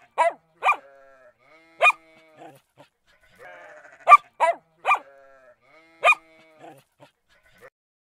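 Dog barking in short sharp barks: three in quick succession and a fourth about a second later, then the same run of barks again about four seconds in.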